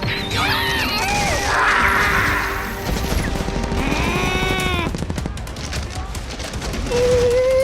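Cartoon soundtrack of music with sound effects: a falling, warbling whistle at the start, a noisy crash about two seconds in, short arching squeaky cries, and a rapid rattle of gunfire-like pops.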